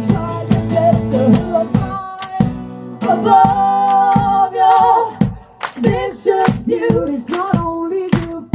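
Live band music: women singing long held notes in harmony over rhythmically strummed guitar.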